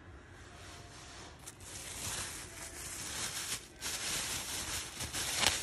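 Thin plastic produce bag rustling and crinkling as a bundle of asparagus inside it is handled. It grows louder after the first second or so, with a few sharp crinkles, the sharpest near the end.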